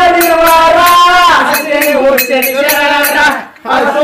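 Men singing a Kannada Muharram folk song (Mohurram pada) in long held notes, over a sharp, high percussion beat of about three to four strikes a second. The voices break off briefly a little after three seconds and start again.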